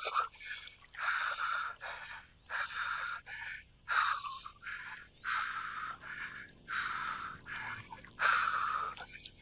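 A man's heavy, fast breathing close to the microphone, about eight breaths in and out with short pauses between, as he plays a fish on a fly rod.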